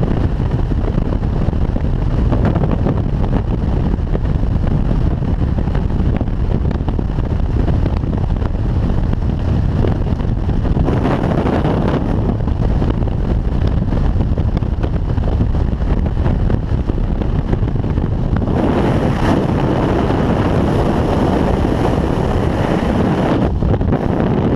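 Freefall wind rushing over a GoPro's microphone in a loud, steady rush, swelling briefly about 11 seconds in and again from about 18 to 23 seconds in. The rush eases near the end as the parachute opens.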